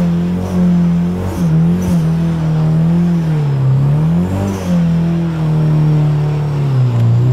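Nissan 240SX's turbocharged SR20DET four-cylinder held at high revs during a burnout, rear tyres spinning. The revs waver and dip briefly twice, about three and a half seconds in and near the end.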